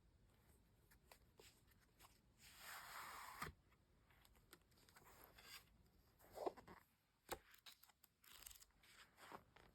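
Packaging being torn open during an unboxing: a tearing noise lasting about a second, then scattered clicks and rustles from the package and books being handled.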